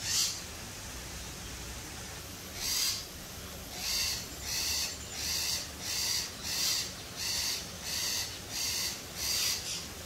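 Sun conure calling repeatedly: a single call at the start, another near three seconds, then a steady run of about nine calls, roughly three every two seconds.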